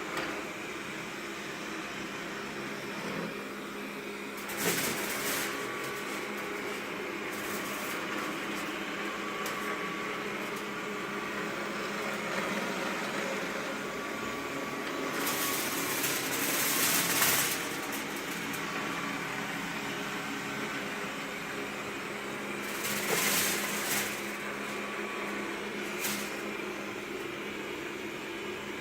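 Xiaomi Mi Robot Vacuum Cleaner running mid-clean, its suction fan and brushes making a steady hum. The hum is broken several times by louder rushes of noise, the longest lasting two or three seconds.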